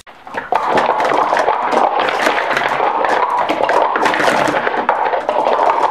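Rapid clatter of plastic sport-stacking cups being stacked up and collapsed down on a stacking mat: a dense, fast run of quick plastic clacks starting about half a second in.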